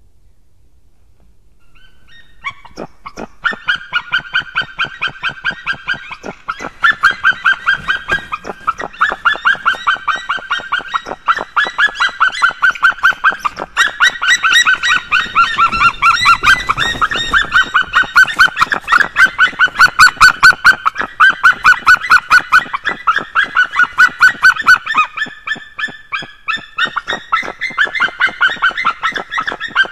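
White-tailed eagle giving its yelping call at the nest: long runs of quick, loud, barking notes, several a second, with short breaks, starting about two seconds in.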